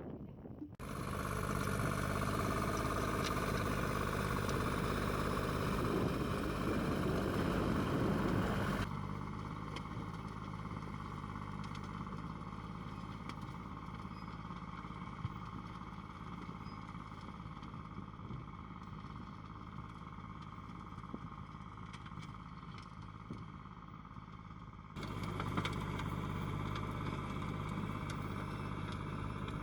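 Tractor engine running steadily while pulling a four-row ridge-forming and plastic-mulch laying implement. The level changes abruptly about a second in, about nine seconds in and about twenty-five seconds in, at cuts between shots.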